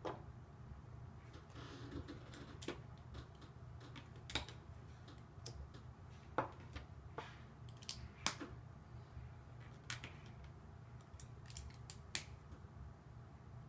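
Plastic Lego bricks and plates clicking and clattering as they are handled and pressed together, in scattered irregular clicks, over a steady low hum.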